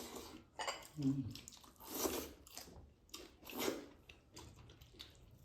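Eating sounds: chewing and wet squishing of rice mixed with dal, in several short bursts.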